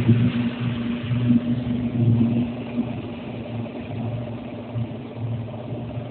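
Motorboat engine labouring, a steady rumble with an uneven low throb, as it is forced to push the grounded boat through the mud of a shallow river mouth.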